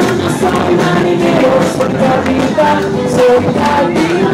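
Live band music: a man singing into a microphone over guitars.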